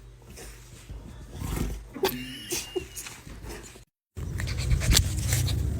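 A dog making low vocal sounds. About four seconds in the sound cuts out for a moment, and a louder, steady low background starts.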